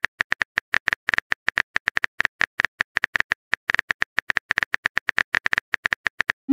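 Phone keyboard typing sound effect: a rapid, slightly uneven string of short, light clicks, one per letter as a text message is typed.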